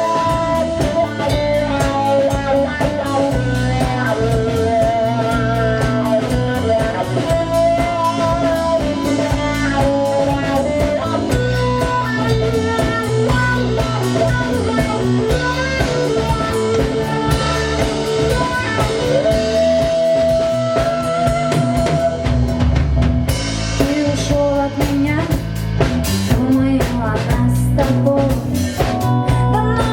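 A live band playing a blues-rock song: guitar over bass and a drum kit, with held, wavering melody notes that may be a lead guitar or a voice.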